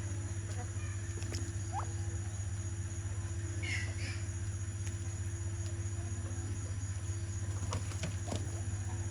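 A few faint chicken chirps and clucks, the clearest about four seconds in, with a few light clicks near the end, over a steady low hum.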